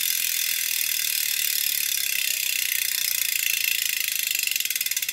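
Rear freehub of a carbon road-bike wheel ratcheting as the wheel spins while held by the hub: a fast, high-pitched buzz of pawl clicks that becomes more distinct click by click in the second half as the wheel slows.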